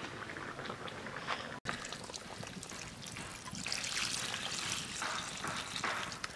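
Water poured in a thin stream from a mug into a simmering fish and papaya curry in a metal karahi, splashing into the gravy. The pouring gets louder from about the middle.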